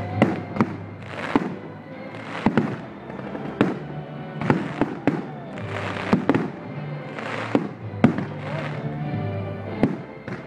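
Aerial firework shells bursting: more than a dozen sharp bangs in quick irregular succession, with short bursts of hissing between them. Music plays steadily underneath.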